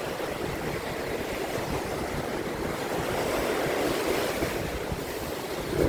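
Ocean surf washing in and breaking on a rocky shore, a steady rush that swells and eases, with wind buffeting the microphone.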